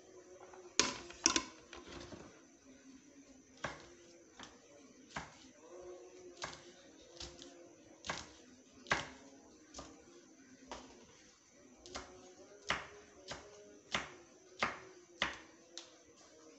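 Sliced shallots and garlic frying in oil in a saucepan, the oil giving sharp irregular pops about once a second, with a louder pair about a second in.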